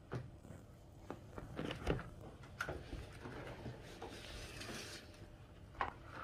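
DJI Mini 2 drone and its accessories handled on a wooden table: a few light plastic clicks and knocks, the loudest about two seconds in, with a soft rustle from about three and a half to five seconds in.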